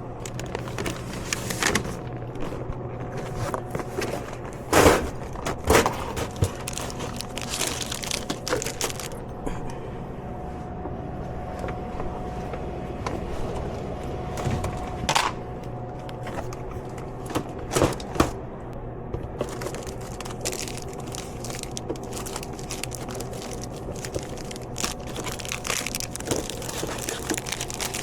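Packaged snacks crinkling and knocking against plastic vending machine trays as the machine is restocked by hand, with a few sharper knocks, over a steady hum.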